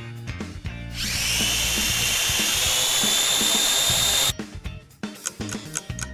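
A drone's propellers buzzing with a high whine. The whine dips a little at the start and then holds steady, then cuts off suddenly after about three seconds.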